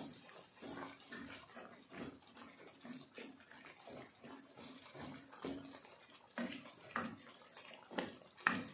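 Faint, irregular water sounds: a scatter of small splashes and blips.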